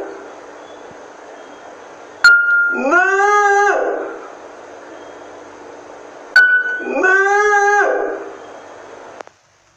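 Two drawn-out "muuu" vocal notes, each sliding up into a steady high pitch and held about a second. Each is preceded by a sharp click and a short high beep.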